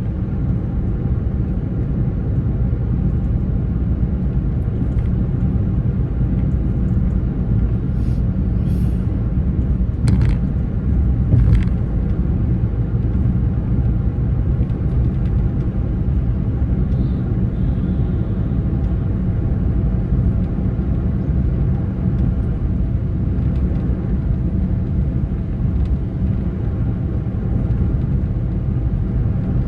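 Steady low rumble of a road vehicle on the move, engine and tyre noise running on. A few short clicks or knocks come about a third of the way in.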